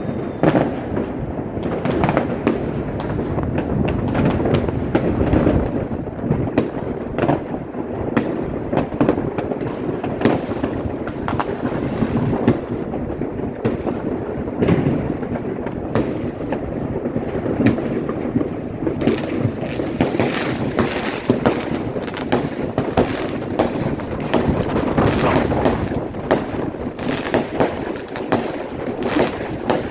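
Continuous fireworks barrage: dense, overlapping bangs and cracks from many rockets and firecrackers at once over a constant rumble, with sharper crackling growing busier in the second half.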